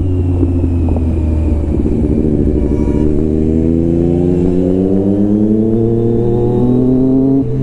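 Motorcycle engines under way: a steady low engine hum, with an engine climbing steadily in pitch over about four seconds as it accelerates, dropping back just before the end.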